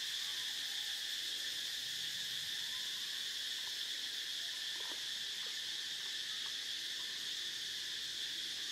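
Steady, high-pitched insect chorus, an even unbroken trilling with no pauses.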